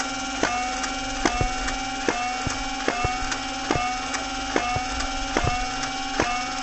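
Flywheel foam-dart blaster firing shot after shot, about one every 0.8 seconds. Each shot is a sharp click followed by the motors' whine gliding back up in pitch as the flywheels recover speed.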